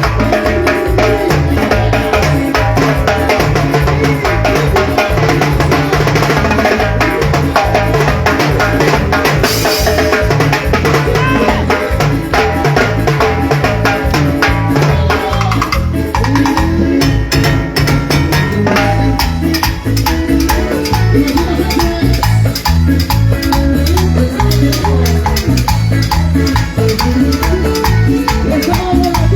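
Loud Latin dance music with a steady drum beat and percussion.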